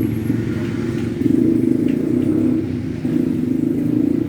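A small engine running steadily at a constant pace, with no change in speed.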